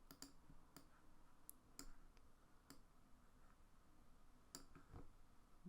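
Faint computer mouse clicks, about seven scattered irregularly over a few seconds, over near silence.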